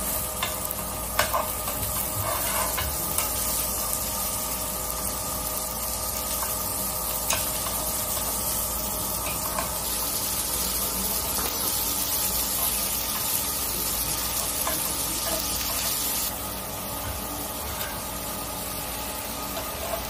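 Hanwoo beef sizzling steadily on a hot griddle plate, with a few sharp metal clicks from the tongs and scissors as the meat is cut and turned. The sizzle drops a little about three-quarters of the way through.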